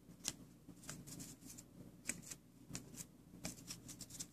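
Glossy hockey trading cards being handled and slid across one another: a string of faint, light clicks and rustles.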